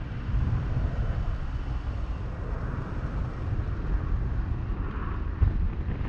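Low, buffeting rumble of wind on the microphone and road noise from a car driving.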